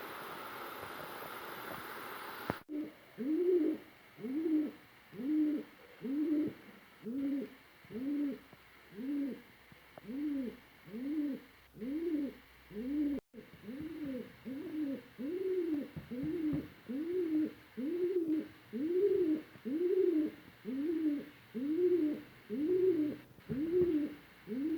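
Low cooing notes, each rising and falling, repeated steadily about once a second, after a steady hiss that cuts off abruptly about two and a half seconds in.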